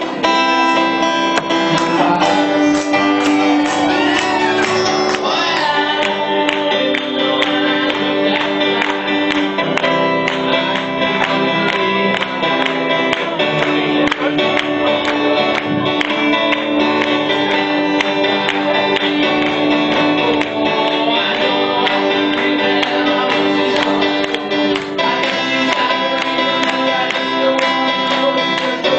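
Acoustic guitar strummed steadily, played live as the accompaniment to a song.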